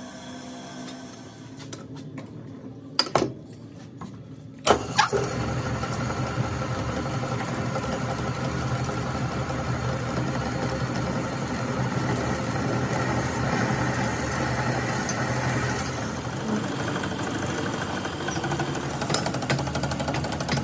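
Metal lathe starting with a couple of sharp knocks about five seconds in, after a quieter stretch with a few clicks, then running with a steady hum while a drill held in the tailstock drills into the centre of the spinning steel plate; crackling clicks come in near the end.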